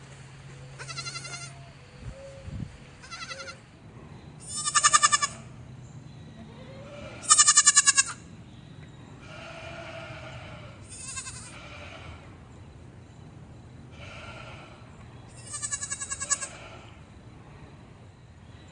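Goat bleating again and again: about six quavering bleats with pauses between them, the loudest two around five and seven and a half seconds in.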